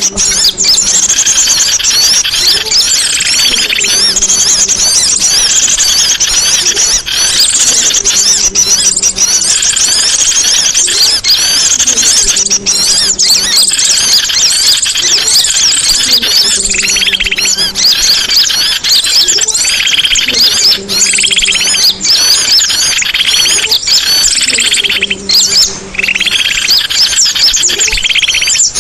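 Songbird singing non-stop, a dense, fast chatter of high twittering trills and warbles. A short low tone repeats about every two seconds underneath.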